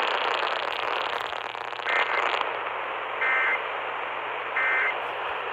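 Three short bursts of shrill digital data tones over steady radio static, coming through a Tecsun PL-380 radio's speaker: the Emergency Alert System end-of-message code that closes the flash flood warning. The bursts come about a second and a half apart, the first about two seconds in, and the hiss is louder before it.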